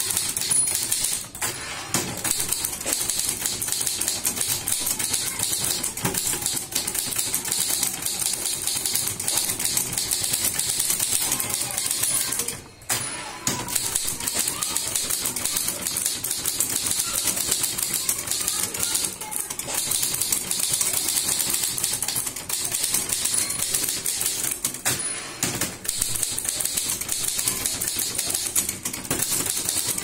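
Manual typewriter typed at high speed: a dense, rapid stream of key and typebar strikes that breaks off briefly twice.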